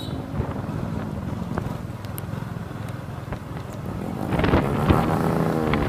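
Small motorbike engines running at low speed. About four seconds in, one engine revs up and grows louder.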